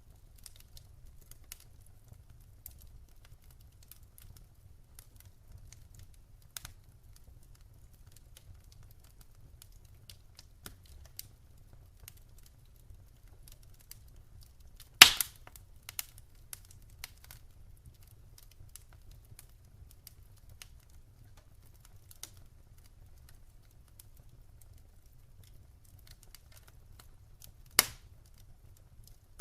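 Wood fire crackling: scattered small crackles over a low rumble, with two loud pops, one about halfway through and one near the end.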